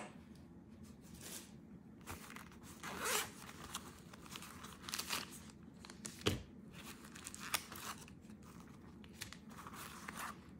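Zipper of a soft neoprene camera carry case being drawn open and shut in several short rasps, with plastic wrapping crinkling in the hands and a sharp knock about six seconds in.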